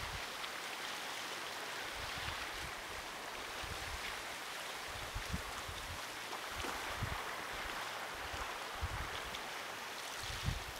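Incoming tide washing gently along an ice-lined shore: a steady, soft wash of water, with occasional faint low bumps on the microphone.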